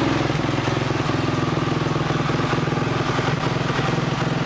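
Motorcycle engine idling steadily, with an even, fast firing beat.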